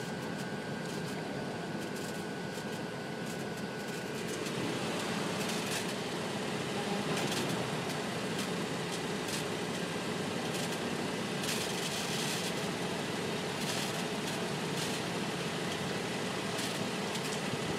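Catalytic converters on a 2009 Infiniti FX35 ticking and crackling: sharp irregular clicks roughly once a second over a steady hum. A thin steady whine stops about four seconds in.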